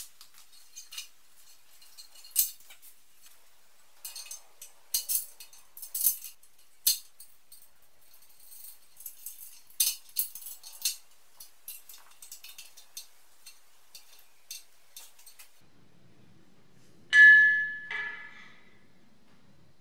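Scattered light clicks and clinks of small metal parts and tools handled while a portable pressure sandblaster is assembled. Near the end comes a loud, brief metallic ring, then a weaker second one.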